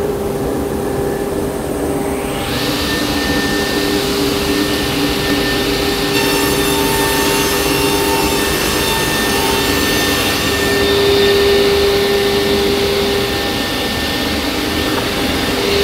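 Martin sliding table saw running with a steady hum, its blade ripping a board lengthwise from about two and a half seconds in, with continuous sawing noise through the wood.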